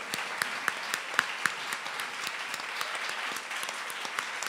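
Audience applauding: many hands clapping at once, with a few sharper nearby claps standing out in the first second and a half.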